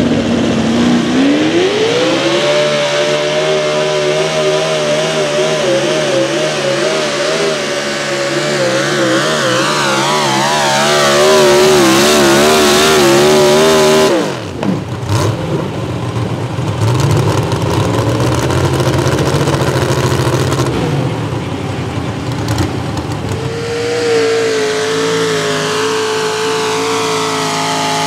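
Mini modified pulling tractor engine revving up hard a second in and held at high revs under load, its pitch wavering as it pulls the sled, then cut off suddenly about halfway through. After that a tractor engine runs at lower, rougher revs, settling on a steadier high note near the end.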